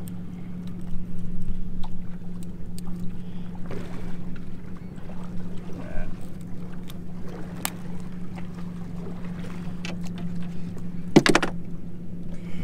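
Sounds aboard a fishing boat on the water: a steady low hum with scattered small clicks and knocks, and one brief louder sound near the end.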